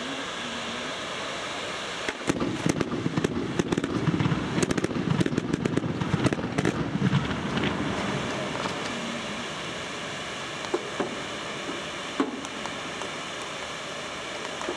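Fireworks going off: a rapid string of bangs and crackles starts about two seconds in and lasts some six seconds, then two single bangs come later, over a steady hiss.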